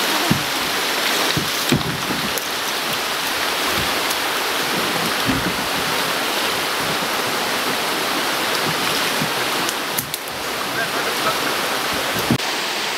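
Steady rush of fast-flowing river water running over shallow rapids, with a few dull knocks.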